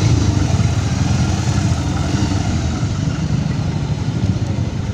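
Motorcycle engine running steadily while riding along a road, with a dense low rumble.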